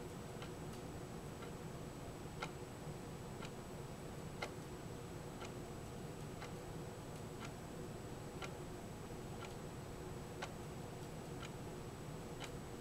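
Faint steady ticking, about one tick a second with lighter ticks between, over a low steady hum and hiss.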